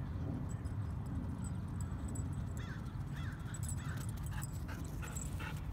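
A dog whimpering in short, high, rising-and-falling whines about twice a second, starting about halfway in, over a steady low rumble.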